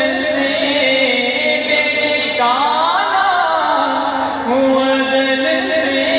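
A man's voice singing a naat into a microphone, holding long drawn-out notes, with a wavering run of higher notes in the middle.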